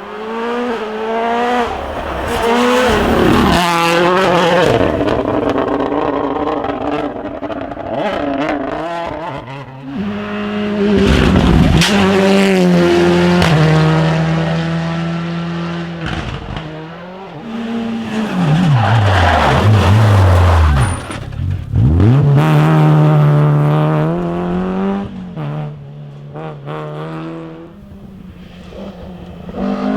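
Rally cars at full stage speed, engines revving hard and pitch climbing and dropping through gear changes and braking, over several passes one after another. The revs fall sharply and climb again a little past halfway.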